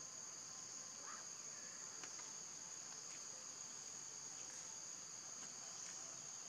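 A steady, high-pitched drone of insects in the surrounding trees, with a few faint ticks.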